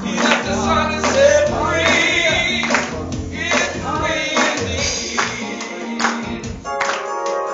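Gospel music: singing voices with vibrato over instruments and struck percussion.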